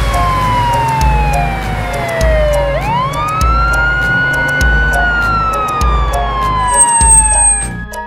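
Police car siren wailing in long slow sweeps. It falls, rises quickly about three seconds in, holds, then falls again and stops near the end. It plays over background music with a steady beat.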